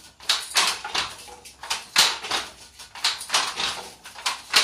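Wooden handloom clattering as it is worked: an uneven run of knocks and sliding rattles, about two a second.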